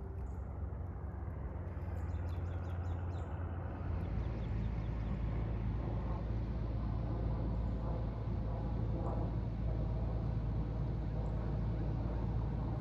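Steady low engine rumble of a motor vehicle, growing louder about four seconds in.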